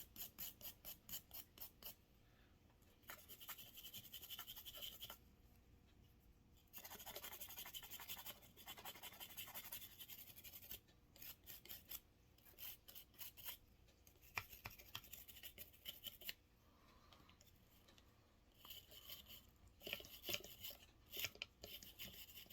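Cleaning brush scrubbing the ejector rod of a Rock Island M200 .38 Special revolver, in quick back-and-forth strokes of about four or five a second. The scrubbing comes in several spells with short pauses between.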